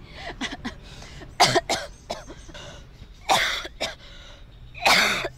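A woman coughing hard several times, two short coughs followed by two longer ones. She says afterwards it is a cough she needs to get checked out.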